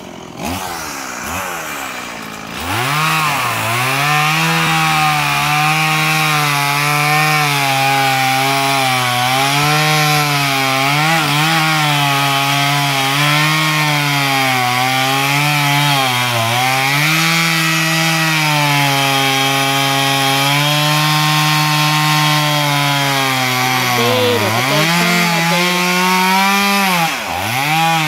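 Two-stroke chainsaw running at high revs while cutting into wood. It is quieter for the first couple of seconds, then runs at full throttle. The engine note dips briefly several times as the chain bogs down in the cut.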